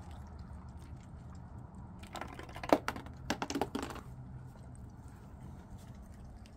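A quick run of light clicks and taps about two seconds in, lasting about two seconds, over a steady low hum.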